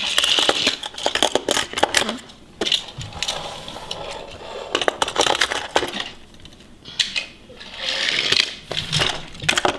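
Die-cast toy cars clicking and clattering against a hard plastic car carrying case as they are pushed into its slots, in several quick runs of clicks with quieter gaps between.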